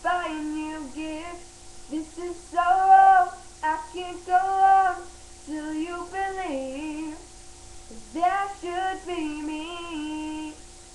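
A girl singing a slow pop melody in four drawn-out phrases with no clear words, the last one ending near the end.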